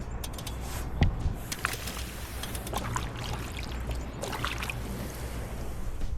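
Water splashing and trickling close by a kayak, with a scatter of sharp knocks and clicks, the loudest about a second in, over a steady low rumble.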